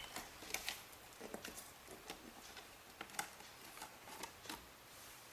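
Faint, scattered small clicks and light rustling from handling laptop parts and cables.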